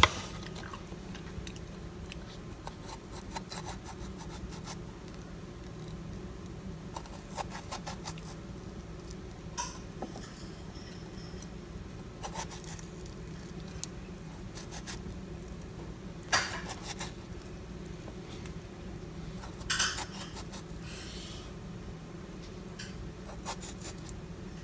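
Knife and handling sounds from a strawberry being carved by hand: a few light clicks and taps of the kitchen knife and fruit against the bowl, the two sharpest about two-thirds of the way through, over a steady low hum.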